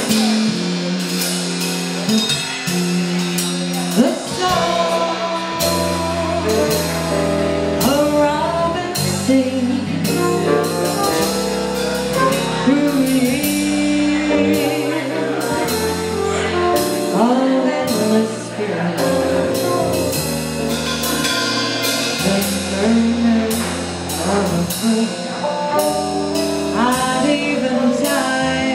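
Small jazz combo playing live: a bass walking steady notes under drums with regular cymbal strokes, and a melody line on top.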